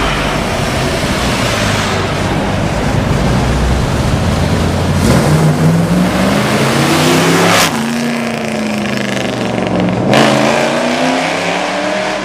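Dodge Challenger's V8 engine running loud, then accelerating: its note climbs steadily for a couple of seconds, drops off suddenly, and climbs again near the end.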